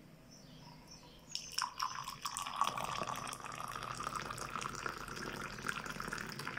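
Tea poured from a height in a thin stream into a small glass, splashing and bubbling as it fills. The pouring starts suddenly about a second and a half in and then runs on steadily.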